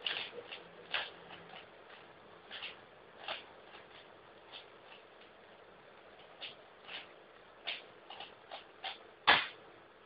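Rubik's cube being turned fast in a speedsolve: irregular plastic clicks and clacks as the layers snap round, with one much louder knock about nine seconds in.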